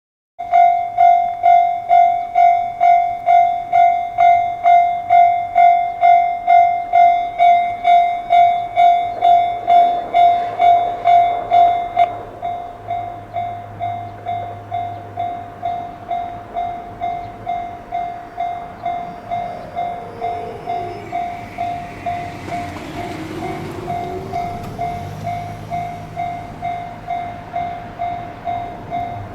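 Electronic warning bell of a Japanese railway level crossing, newly renewed, ringing about twice a second from half a second in. About twelve seconds in it drops to a quieter level and keeps ringing while a train passes beneath it in the second half.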